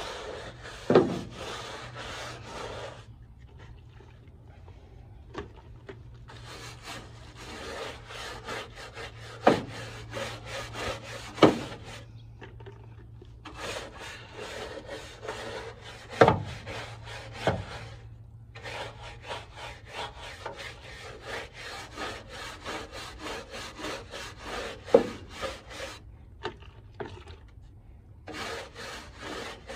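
Stiff-bristled brush scrubbing grease and grime off a car's bare steel inner wheel well, in runs of quick back-and-forth strokes broken by short pauses. Several sharp knocks stand out above the scrubbing.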